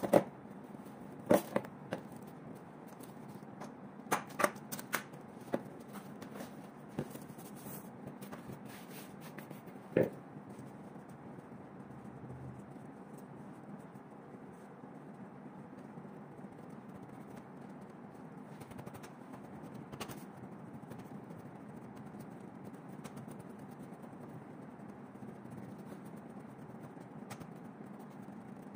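Plastic cling film crackling and snapping as it is pulled from a roll and spread over a pan, a string of sharp clicks in the first ten seconds. After that a steady low hum with a few faint ticks.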